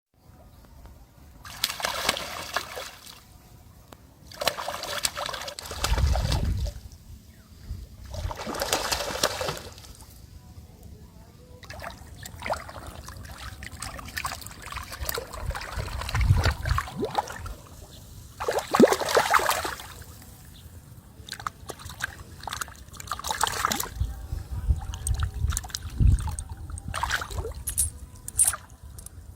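Water splashing and sloshing in repeated bursts a few seconds apart, with a few low thumps in between.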